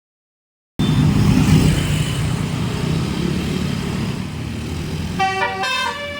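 After a short silence, a bus's engine rumbles in abruptly about a second in. About five seconds in, a telolet basuri musical bus horn starts, playing a quick tune of stepped horn notes.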